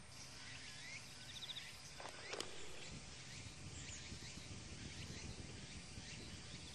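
Faint outdoor ambience: scattered short bird chirps, one a sharp downward-sliding whistle about two and a half seconds in, over a steady high insect drone and a low rumble of wind.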